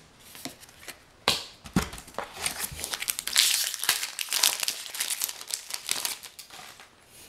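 Foil wrapper of a Magic: The Gathering booster pack crinkling and tearing as it is handled and opened: a sharp crackle about a second in, a dull knock, then dense crinkling through the middle that thins out near the end.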